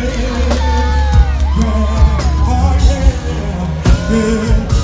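Live R&B music played loud through a concert PA, with a heavy bass and a voice singing, and a few sharp drum hits.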